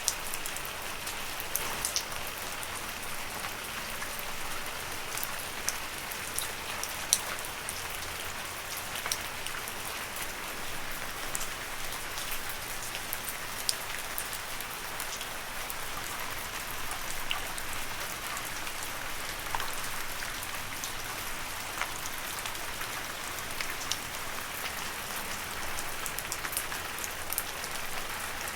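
Steady rain falling on leaves: a continuous patter, with scattered sharper taps of single drops throughout.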